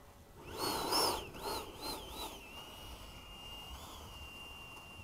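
High whine of an RC jet's electric ducted fan, rising and falling in pitch about five times in quick succession with a rush of air, then holding a steady, fainter whine.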